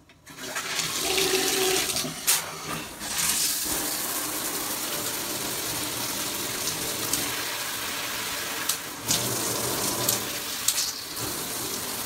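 HOPOPRO six-function handheld shower head spraying water onto the tiles, a steady rushing hiss that comes on about half a second in. A few brief clicks stand out over it.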